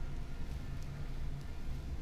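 Steady low hum with a few faint light taps and scrapes of a plastic spatula on a griddle.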